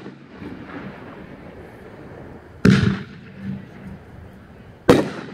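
Winda "Yin Yang" 500-gram consumer fireworks cake firing aerial shells: two sharp bursts about two seconds apart, a little under three seconds in and near the end, the first trailing off in a short rumble.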